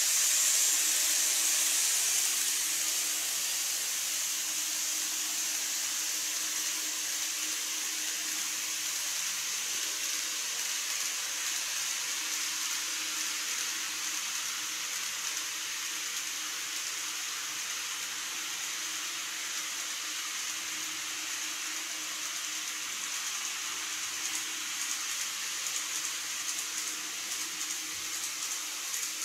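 Model electric trains running on track, a steady high whirring hiss of motor and wheels with a faint hum under it. It is loudest as a train passes close at the start, fades, and grows again near the end as a train crosses the truss bridge.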